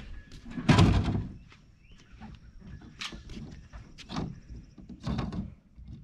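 Paddle strokes in the water: repeated splashing swishes roughly once a second, the loudest about a second in.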